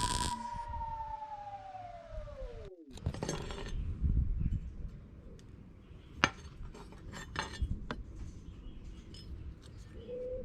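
A pitched tone sliding down and cutting off abruptly, then light metallic clinks and knocks from hand work on sheet-steel repair pieces.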